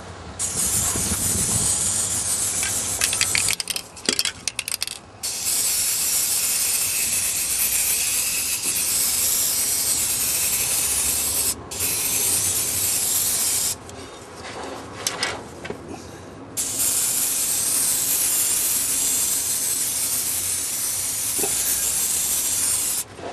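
Aerosol spray-paint can hissing in several long bursts, several seconds each, as paint is sprayed onto an old car exhaust pipe and silencer. Brief clicking and rattling come in the gaps between bursts.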